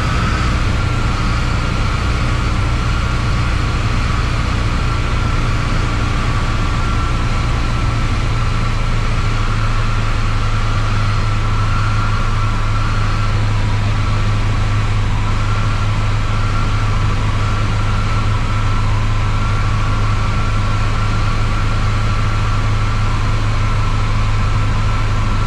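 Cabin drone of an Embraer Tupi's four-cylinder Lycoming O-360 piston engine and propeller, running steadily and heard inside the cockpit during the descent on final approach.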